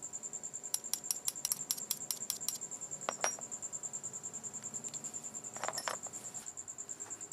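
A cricket trilling steadily in a high, pulsing tone, about eight pulses a second. Over it come a quick run of sharp clicks about a second in, then a few knocks a little later.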